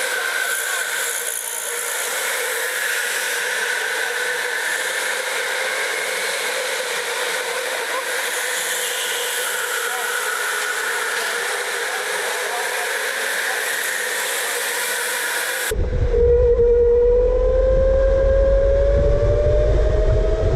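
Electric go-karts running on an indoor track, a steady motor whine over a hiss. About 16 s in, the sound switches to one kart's own close sound: its electric motor whine rising in pitch as it accelerates, over a heavy low rumble.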